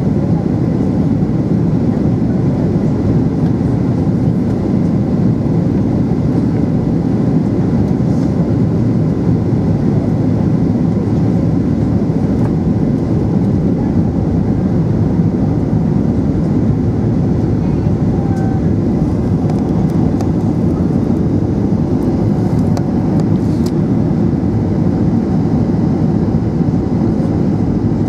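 Steady low rumble of engines and airflow heard inside the cabin of a Boeing 737 in flight, on its approach to land.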